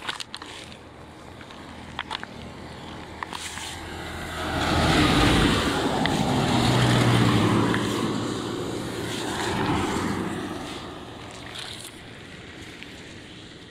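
A vehicle passing along a flooded street, its engine hum under a loud hiss and swish of tyres through water. The sound swells up about four seconds in, peaks twice, and fades out a few seconds before the end.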